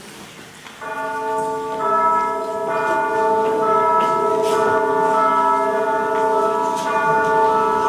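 Recorded music starting about a second in: held, bell-like chords with a few struck notes, played back loud through the hall's sound system.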